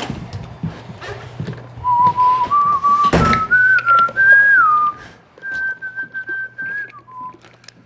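A person whistling a short tune, a single clear note stepping up and down between pitches, held longer near the end before dropping. A sharp knock cuts in about three seconds in.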